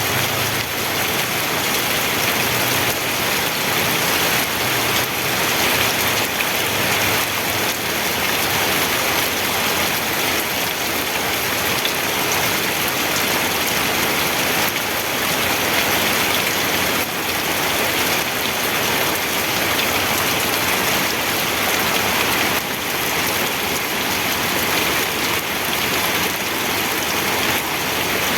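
Steady rain falling on a surface, a continuous even hiss of drops.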